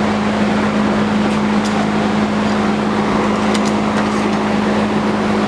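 Forge running steadily: a constant hum over a rushing noise, with a few faint ticks.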